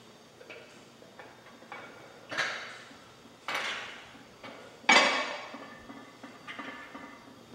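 Barbell and iron weight plates clanking in a gym rack: a few light knocks, then three loud metal clanks about a second apart, the loudest about five seconds in, each ringing briefly, followed by lighter knocks.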